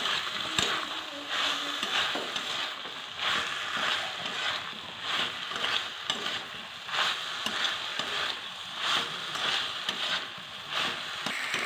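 Bottle gourd stems and vegetables in mustard and poppy-seed paste sizzling in a metal wok while a spatula stirs them in regular strokes, a little more than one a second.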